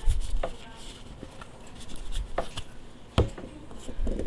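Handling noise from unboxing a smartphone: a few sharp knocks and clicks of the phone and its plastic protective case being picked up and set down, with light rustling between them, the loudest knock a little after three seconds in.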